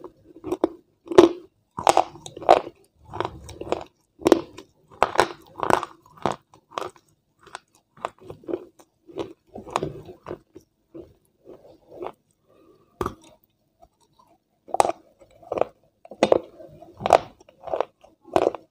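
Close-miked chewing and crunching of food, with sharp bites in an uneven rhythm of about one or two a second, and a short pause a little past the middle.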